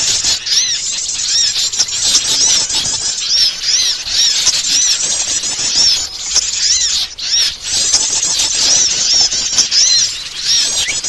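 A dense chorus of many small songbirds chirping and twittering over one another in a continuous, high-pitched chatter. It is a bird-lure (pikat) recording of small birds, played to draw wild small birds in.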